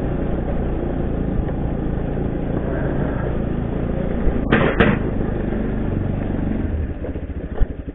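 Motorcycle engine running steadily under wind noise, dropping toward idle near the end. A short, sharp double sound comes about halfway through.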